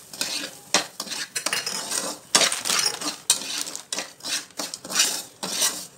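Perforated metal spatula scraping and clicking against a pan in repeated stirring strokes, as semolina and chopped nuts are roasted in ghee.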